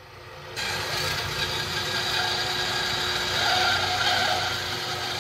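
Dayton horizontal band saw with its blade cutting through a slotted aluminum extrusion. A loud, steady sawing noise with several held tones sets in abruptly about half a second in and continues.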